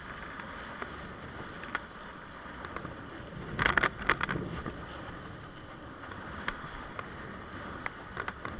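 Water rushing along the hull of a Fanatic Ultra Cat windsurf longboard under sail, a steady hiss with small scattered ticks of spray. About three and a half seconds in comes a short cluster of loud slaps and splashes.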